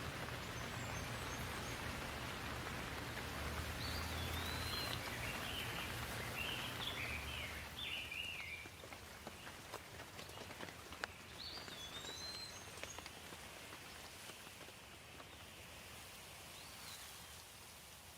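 Steady rain falling, with a bird chirping a few short phrases over it. The rain eases a little about halfway through and fades out at the end.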